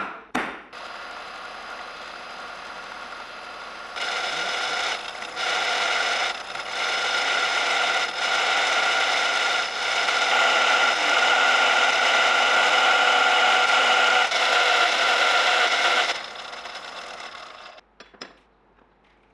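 Electric power tool working metal: a steady whine over a scraping, grinding noise, which grows louder about four seconds in, stops about sixteen seconds in and winds down over the next two seconds. A couple of hammer blows ring out right at the start.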